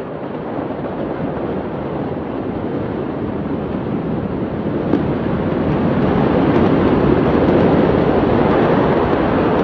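Steady rushing noise that grows louder about six seconds in, with a few faint scattered crackles.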